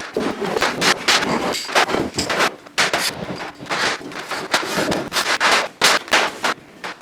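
A rapid, irregular run of sharp knocks and clatter from hands-on workshop fitting work, several impacts a second.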